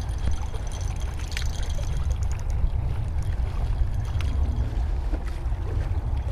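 Small waves lapping and trickling against shoreline rocks over a steady low rumble, with a few faint clicks.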